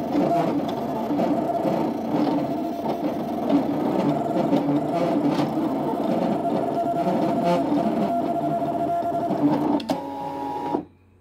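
Brother ScanNCut cutting machine running a cut, its motors whirring and whining in shifting tones as the blade carriage and mat move back and forth. The tone changes briefly, then the machine stops shortly before the end as the cut finishes.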